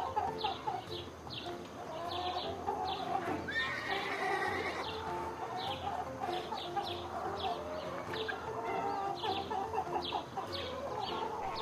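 Farm animals calling: a continuous chatter of short calls, with a train of short high chirps repeating two to three times a second.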